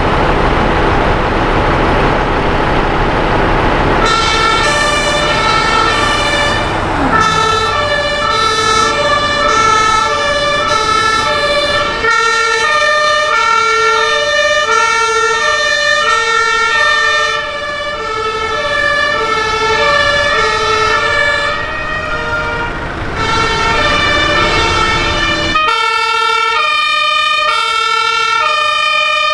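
A heavy fire truck's engine rumbles close by. From about four seconds in, the German two-tone sirens of passing fire-brigade vehicles sound, alternating steadily between a high and a low tone, with more than one siren overlapping. Near the end the siren pattern changes as a different siren takes over.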